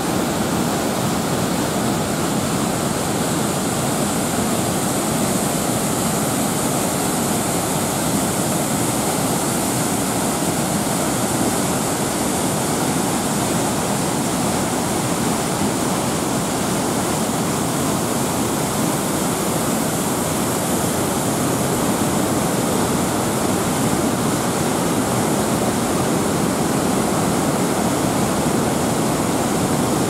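Rushing water: a cascade pouring over a stone weir into the river, a steady, even noise with no change.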